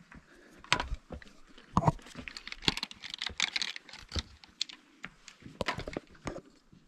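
Irregular clicks and crunches of loose, flaky layered rock crumbling and shifting, with a dense cluster of small crackles in the middle.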